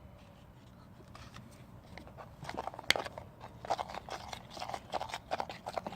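A spoon stirring a sticky mix of glue and laundry detergent in a bowl: irregular clicking, scraping and squelching, starting about two seconds in.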